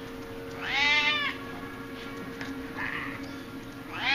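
Domestic cat meowing twice, each meow rising then falling in pitch: one about a second in, the second starting near the end.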